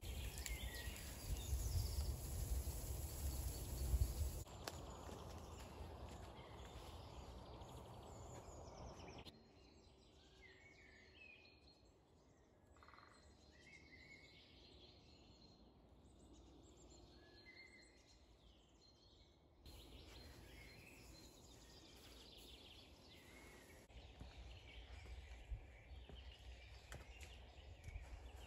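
Outdoor ambience of small birds chirping at intervals over a steady background hiss, with a low rumble in the first four seconds or so.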